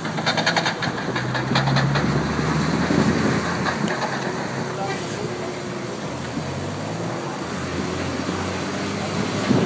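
Street traffic noise as a Formula E electric race car drives slowly along the road, a motorcycle running alongside, with steady low engine and motor tones. A run of rapid ticks sounds in the first two seconds.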